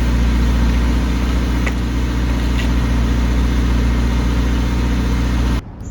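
A car's flat-four engine idling steadily with a low hum. It cuts off abruptly near the end.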